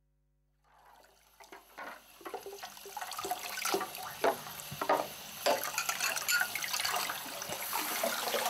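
Water from a bathroom tap running and splashing into a sink while a small glass jar is rinsed under it, with repeated clinks and knocks as things are handled in the basin. It fades in about a second in and grows louder.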